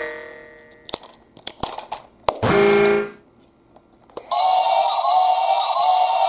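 Plastic clicks as the battery cover of a battery-powered Thomas & Friends toy train is closed, a short electronic tone about two and a half seconds in, then the toy's electronic tune from its small built-in speaker starting about four seconds in and carrying on.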